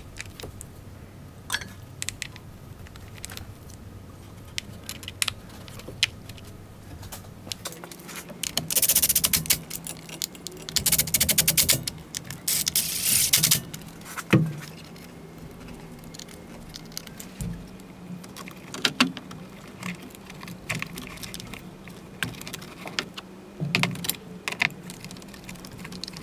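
Clicks and rattles of hands and tools fitting aftermarket performance coil packs onto a 3.6 L Jeep engine, with scattered single clicks and two longer runs of rapid clicking near the middle, followed by one sharper knock.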